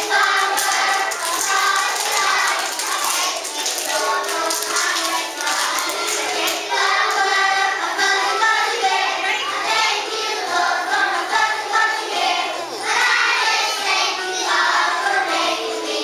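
A group of young children singing a song together with musical accompaniment, their voices holding and changing notes throughout.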